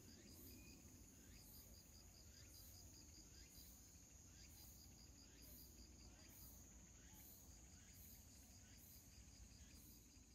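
Near silence with faint insects chirping: a rapid, even pulsing chirp and a steady high trill that carry on throughout.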